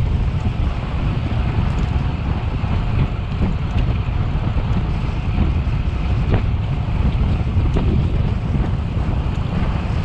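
Wind buffeting the microphone of a cyclist riding at speed: a steady, gusting rush with a heavy low rumble and no distinct tones.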